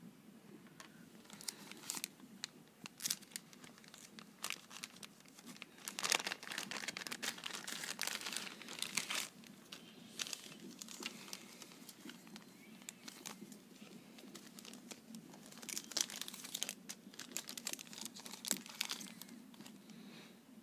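Packaging being handled and unwrapped by hand: crinkling and crackling wrapping with a few tearing sounds, busiest in two spells about six and sixteen seconds in.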